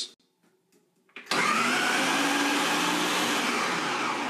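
Ninja countertop blender running on high, chopping slices of dry bread into coarse crumbs. The motor starts abruptly about a second in, runs steadily, and begins to wind down near the end.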